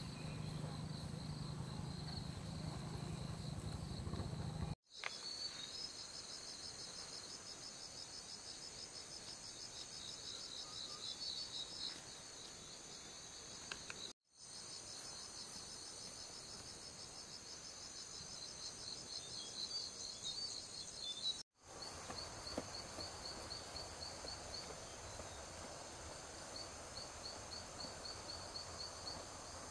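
Chorus of insects trilling and chirping in jungle, a continuous high-pitched drone with rapid pulsing trills over it. A low steady hum sits under it for the first five seconds or so, and the whole sound cuts out abruptly three times.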